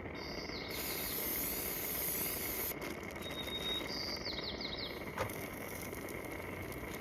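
Birds chirping over a steady background hiss, with a quick run of falling chirps near the start and again a little past four seconds. A single sharp click comes just past five seconds.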